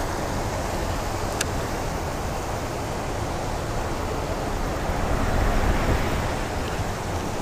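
Steady wind noise buffeting the microphone, with one short click about a second and a half in.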